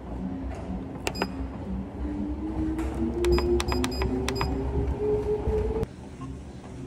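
Treadmill console buttons beeping, one beep about a second in and then a quick run of about five beeps, while a motor whine rises steadily in pitch as the belt speeds up.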